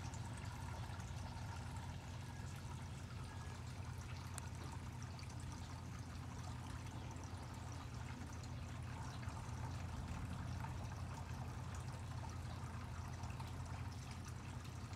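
Steady trickle of running water over a low, even hum, with no distinct events.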